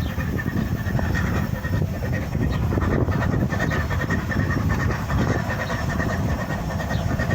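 A train running: a steady rumbling with a faint high steady tone over it.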